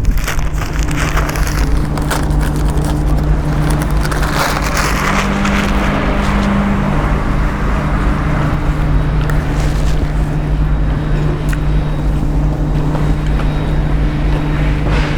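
A car engine running at a steady, unchanging pitch under a broad rushing noise, with a few scattered clicks.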